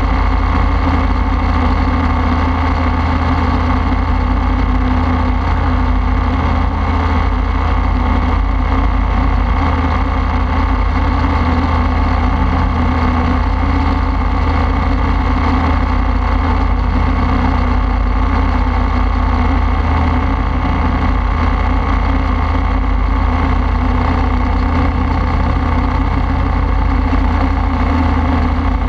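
Open-frame ultralight aircraft's engine and pusher propeller running steadily in cruise flight, with wind rushing over the strut-mounted camera.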